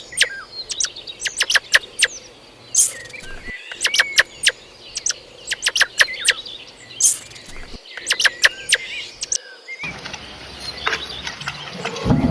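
Songbirds chirping and whistling: many quick, sharp high chirps in rapid succession, with a steadier background hiss joining in near the end.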